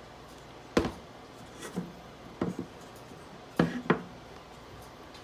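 Wooden boards of a rack frame knocking and bumping together as they are handled and pushed square: about six separate knocks, the loudest about a second in and just before four seconds.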